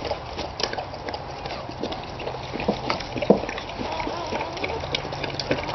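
Wet clicking and rubbing as a newborn Boxer puppy is rubbed with a towel to clear its birth sac, irregular small smacks over a steady rustle.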